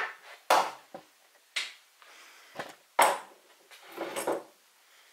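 Several short knocks and clatters, about five spread over a few seconds with quiet gaps between.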